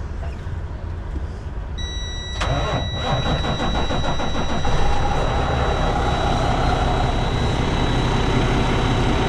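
A semi truck's diesel engine cranks and starts about two seconds in, then runs steadily, while a steady high-pitched warning buzzer sounds from just before the start, which is put down to low air pressure.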